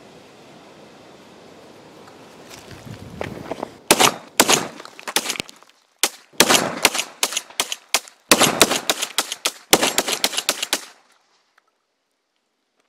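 A steady hiss, then a rapid, irregular string of sharp cracks and pops for about seven seconds, stopping abruptly: ammunition cartridges going off in the heat of an HHO torch.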